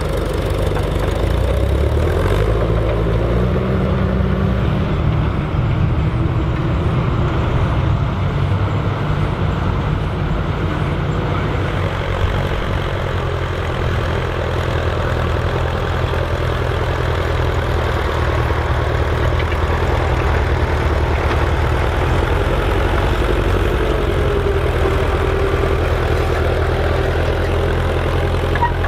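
Massey Ferguson 35 tractor engines running steadily under load while pulling cultivators through soil. The engine note shifts a little in the first few seconds, then holds steady.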